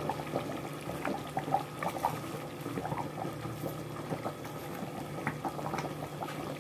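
Thick cashew-and-poppy-seed chicken gravy boiling in a kadhai, a continuous run of small irregular bubbling pops, over a low steady hum.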